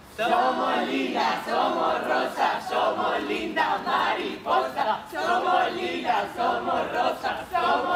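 A group of young people shouting and shrieking together, many voices at once, some of them very high-pitched.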